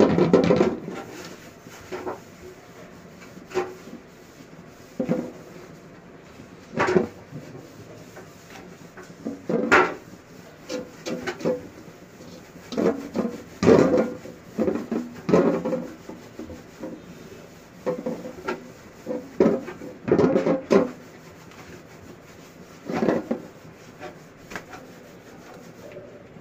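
Silicone spatula scraping and stirring melting sugar around a metal pot as it caramelises, in irregular strokes, some a few seconds apart and some in quick runs.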